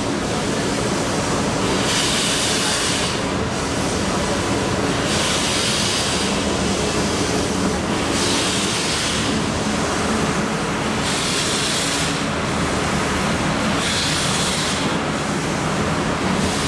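WP-class 4-6-2 steam locomotive hauling its train slowly, heard from a coach: a steady low rumble of the moving train with a hiss of steam that swells about every three seconds.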